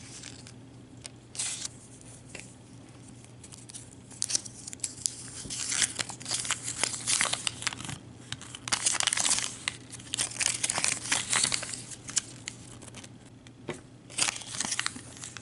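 A small folded paper instruction leaflet crinkling and rustling as it is unfolded and handled, in several bursts of a few seconds each.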